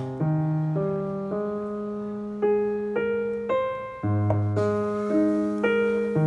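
Background music: a slow solo piano melody, a new note about every half second over held bass notes.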